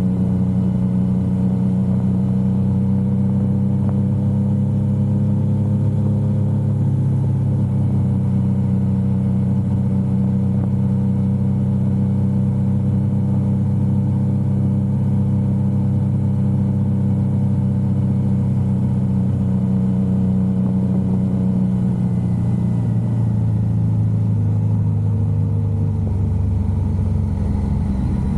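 Yamaha XSR900's three-cylinder engine running steadily while riding at a constant speed, its pitch sliding down over the last few seconds as it slows.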